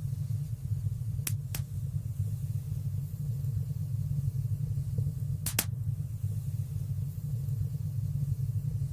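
Wood fire burning in a stone fireplace: a steady low rumble with three sharp crackling pops, two close together just after a second in and one more past the middle.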